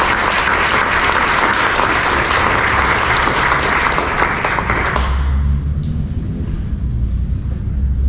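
Audience and panel applauding a speaker's introduction: a dense patter of hand claps that dies away about five seconds in, leaving a low rumble.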